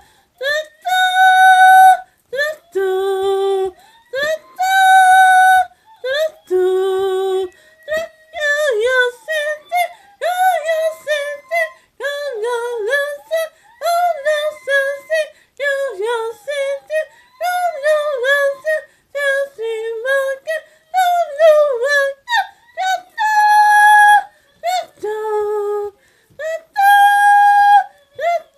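A high voice singing without words, yodel-like. Held notes jump back and forth between a low and a high note about an octave apart, give way to a long run of quick sliding, warbling notes, then return to held leaps near the end.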